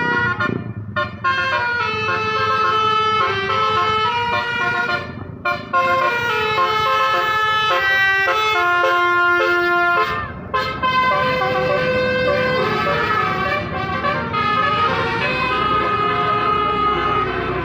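Tour buses' telolet basuri musical air horns playing tunes note by note, several horns overlapping and answering each other. There are brief breaks about a second in, about five seconds in and about ten seconds in.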